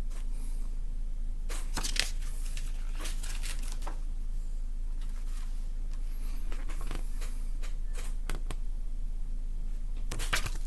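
Paper pages of a CD booklet rustling and crinkling as they are handled and turned, in short scattered bursts over a steady low hum.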